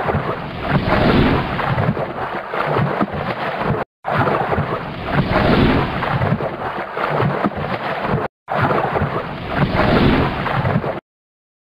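Rushing, splashing water-like noise without any clear call or tone, the same few-second sound-effect clip played three times with short silent gaps between, cutting off near the end.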